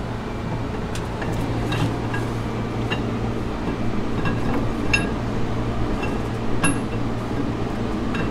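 Scattered light metal-on-metal clinks, about six at irregular intervals, as a stock camshaft is turned and slid out of a 5.9L Magnum V8 block. A steady hum runs underneath.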